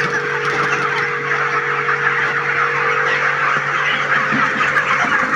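Pressure washer running steadily, its motor and pump giving a constant hum, over the dense chatter of many chickens in a poultry shed.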